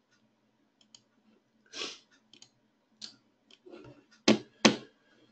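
Computer mouse clicks, faint and scattered, with two louder clicks close together a little past four seconds in.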